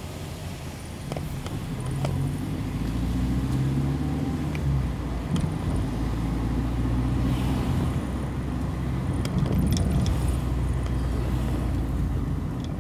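Car engine and road noise while driving, the engine note shifting up and down several times, with a few light clicks.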